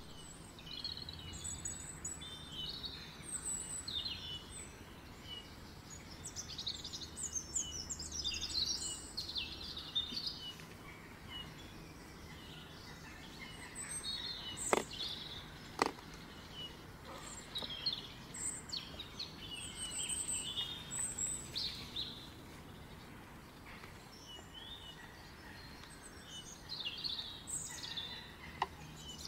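Several birds chirping and trilling in short, overlapping calls, over a faint steady low rumble of outdoor background noise. Two sharp clicks, about a second apart, come near the middle.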